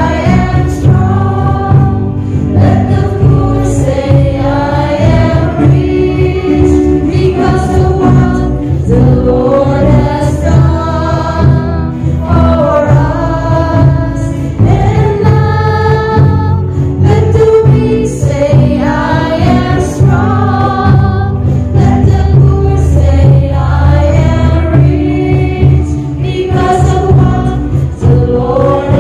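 A choir singing a church hymn over instrumental accompaniment.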